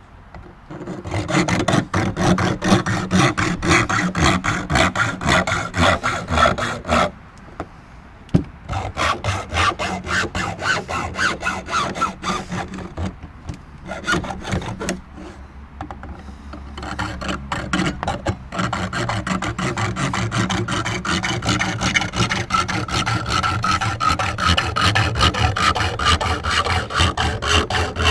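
Fine-tooth hand hacksaw cutting in quick back-and-forth strokes, stopping briefly twice, about seven and fourteen seconds in.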